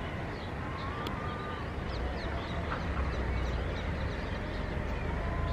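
Birds calling outdoors, with many short, quick chirps and a few longer calls, over a steady low rumble.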